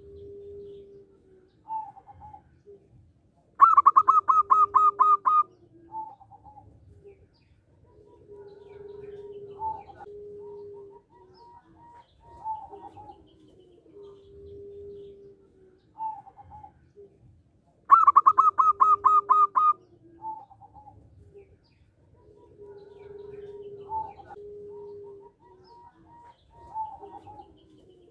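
Zebra dove (perkutut) cooing: two loud phrases of about eight rapid staccato notes each, about 4 s and 18 s in, with softer, lower coos and short notes repeating in between.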